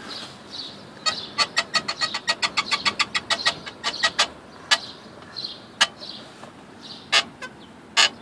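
Hyundai Starex seat creaking: a quick run of short, sharp creaks about five a second, then single creaks every second or so. The creak comes from loose seat-mounting bolts and stops once they are tightened from inside.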